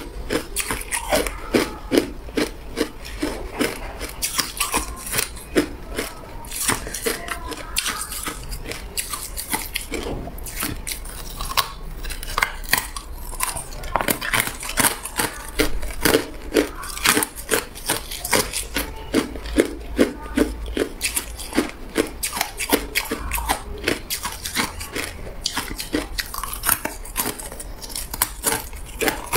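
Hard ice cubes being bitten and chewed: a quick, uneven run of sharp cracks and crunches as the ice breaks between the teeth.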